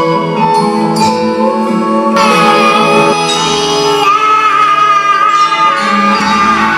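Live band music mixing gamelan with other genres: held melodic notes over a steady low line, the sound filling out about two seconds in.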